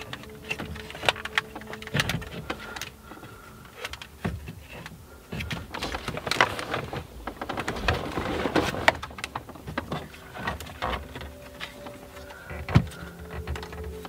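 Handling noise from a factory BMW head unit being worked out of the dashboard: scattered clicks, knocks and scraping of its metal case and wiring against the dash trim, with a rustling stretch midway and one sharper knock near the end.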